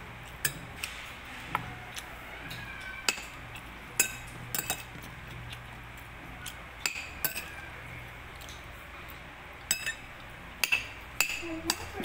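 A metal spoon clinking and scraping against a ceramic plate while eating, a dozen or so sharp clinks at irregular intervals.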